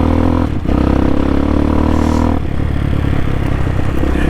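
CSC TT250's single-cylinder four-stroke engine running while riding over rough ground. The engine note cuts out briefly about half a second in, then runs steady. It eases off just after two seconds and picks up again near the end.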